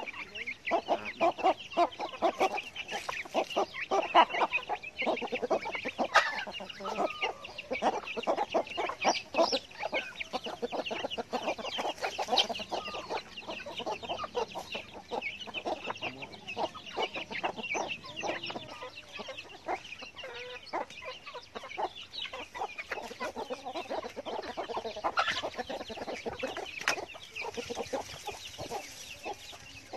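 A flock of chickens clucking continuously in many short calls, with chicks peeping high and steadily throughout, while they scratch and peck for termites in loose soil.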